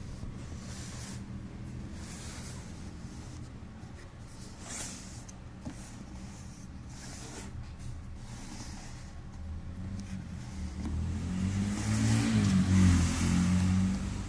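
A motor vehicle's engine running, growing louder and shifting in pitch toward the end, over a steady low hum, with a few soft rustles.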